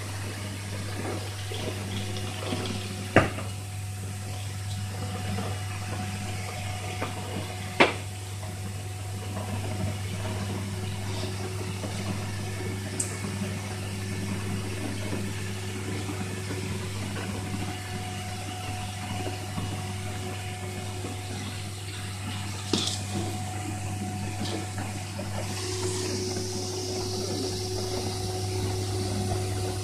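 Wet-spray cellulose insulation rig running: a steady hissing rush of air-blown cellulose and water mist from the spray nozzle over the steady low hum of the blowing machine. Two sharp knocks stand out, about three and eight seconds in.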